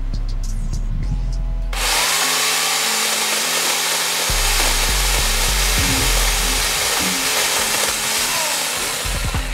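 Remington 2-in-1 electric pole saw running and cutting into branches, its chain and motor making a loud, even, hissing buzz that comes in about two seconds in. Background music with a steady bass beat plays under it.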